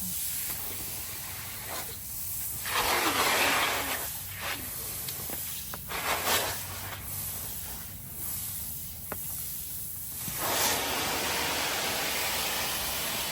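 Rain falling, a steady hiss that swells louder several times and settles at a louder level near the end.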